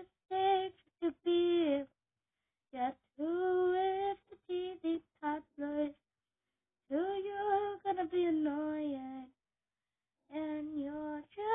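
A girl singing unaccompanied, in sung phrases with held notes and brief pauses between them.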